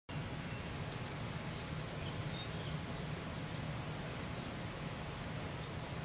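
Steady low ambient rumble, with faint, short, high chirps of small birds scattered through the first couple of seconds and again about four seconds in.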